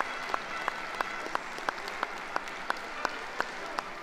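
Audience applauding, with clapping in a steady beat of about three claps a second, as a show dog is presented in the ring.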